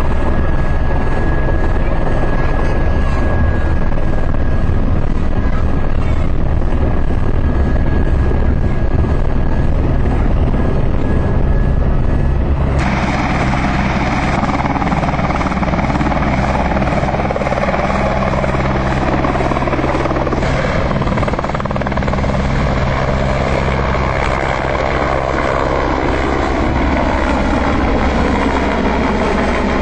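Eurocopter AS350 BA Ecureuil helicopter running steadily: the single turboshaft engine and the main rotor. About thirteen seconds in, the sound suddenly turns brighter, and in the second half a set of whining tones slowly falls in pitch.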